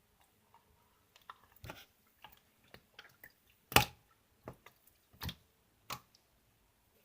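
Cheese-lemon slime being squeezed and poked by hand, giving irregular wet clicks and pops, the loudest a little under four seconds in.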